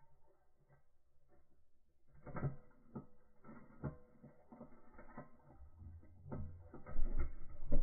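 Muffled underwater sound through a submerged camera: irregular knocks and clicks, then a louder low rumble of churning water near the end as a hooked king salmon thrashes close by.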